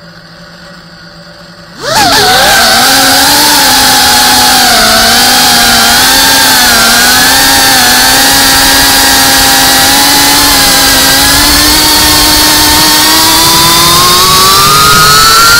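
FPV quadcopter's brushless motors and propellers, heard from the camera on the drone: a quieter steady hum, then about two seconds in a sudden loud buzzing whine as the throttle comes up for takeoff. The pitch wavers with the throttle through the flight and rises near the end.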